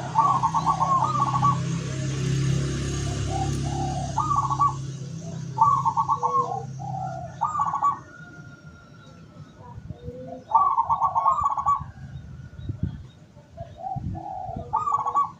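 Zebra doves (perkutut) cooing: about six phrases of quick, rippling coos, some phrases close together and some with pauses of a few seconds. A low steady hum sits under the first five seconds.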